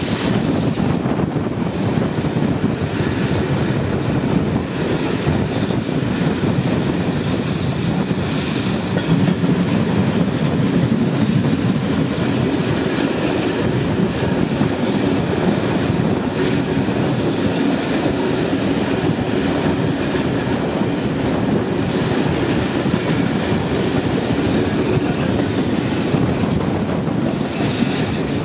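Steam-hauled passenger train running on the rails: a steady rumble with wheel clatter.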